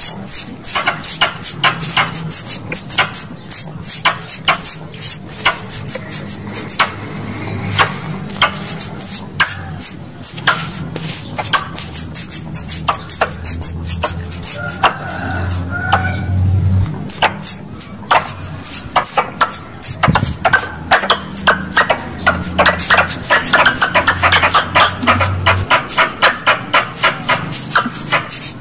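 Squirrel calls played as a lure to draw pest squirrels: sharp, high-pitched chirps, about two or three a second, in long runs with a short break a little past the middle.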